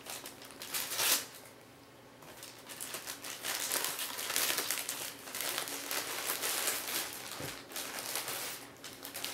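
Plastic poly mailer bag crinkling and rustling in irregular bursts as it is pulled open by hand and its contents handled, with a short lull about a second and a half in.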